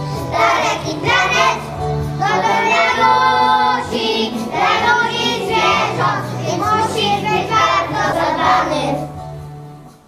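A group of preschool children singing together over instrumental accompaniment; the song fades out near the end.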